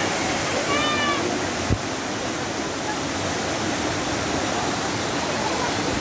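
Waterfall cascading over rock, a steady rush of falling water. About a second in comes a brief high-pitched call, and just before two seconds a short knock.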